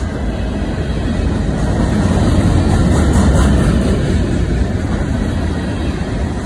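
Freight cars (open-top hoppers and gondolas) rolling past at close range: the steady low rumble of steel wheels on rail, swelling to its loudest midway.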